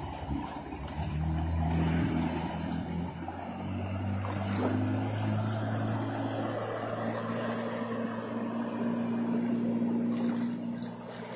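Jet ski engine running at speed across the water, a steady drone that steps up in pitch about three seconds in and then holds, over a hiss of water spray.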